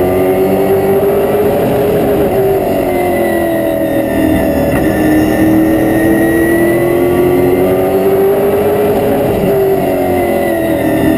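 Race car's V8 engine heard from inside the cockpit while lapping a short oval. The engine note climbs over the first couple of seconds and eases off through the middle. It climbs again and drops near the end, the rhythm of throttle down the straights and lifting into the turns.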